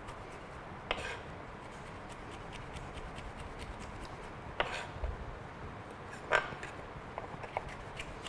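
Chef's knife slicing fennel on a plastic cutting board: a run of light, quick knife taps, with three louder knocks and scrapes against the board.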